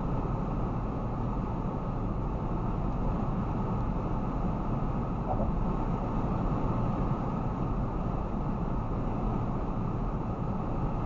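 A car driving along a highway, heard from inside the cabin: steady, even road and tyre noise.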